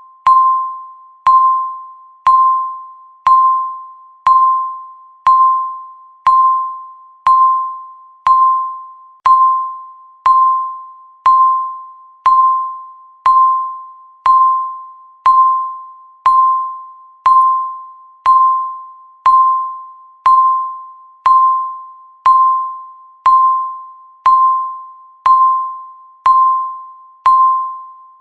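Countdown timer beep: one chime-like tone struck once every second, each sounding sharply and then fading before the next.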